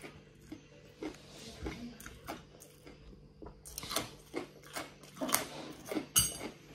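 A person chewing and crunching pieces of crispy fried garlic, an irregular run of crunches that gets louder and denser from about halfway, with a sharp click near the end.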